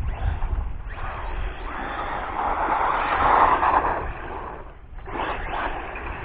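Arma Typhon 3S BLX RC car with a stock brushless motor and Hobbywing ESC driving around, its motor and tyre noise swelling loudest about three seconds in as it passes close, dropping away near five seconds, then picking up again.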